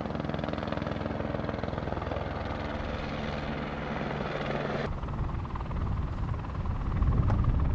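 Helicopter rotor beating steadily in a fast, even pulse. The sound changes abruptly about five seconds in and grows louder near the end.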